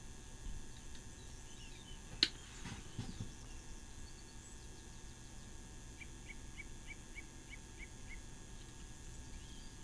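Faint birds chirping in the background, with a run of about eight short, even chirps, about four a second, starting around six seconds in. A single sharp click about two seconds in is the loudest sound.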